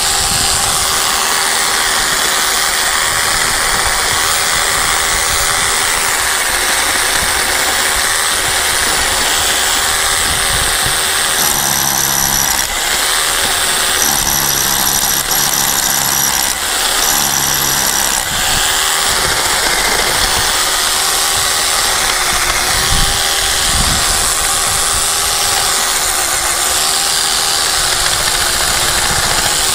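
A steady mechanical drone like an engine running, with a constant low hum. A separate pitched sound breaks in three times between about twelve and eighteen seconds in.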